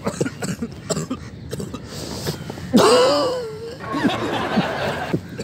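A single loud wordless vocal outburst from a person, starting sharply about three seconds in and lasting about a second, among scattered quieter voice sounds.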